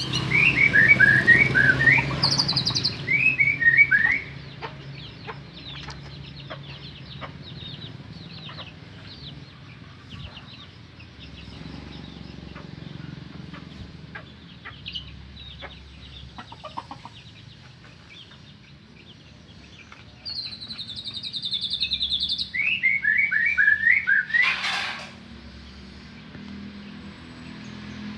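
White-rumped shama (murai batu) singing: loud runs of quick, falling whistled notes at the start and again about twenty seconds in, with quieter chirps and short trills between. A brief harsh, rasping note sounds near the end.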